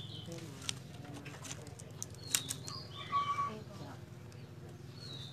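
Thin bamboo strips clicking against each other as they are woven into a basket base, with a few sharp clicks. A short bird call about three seconds in, over low voices in the background.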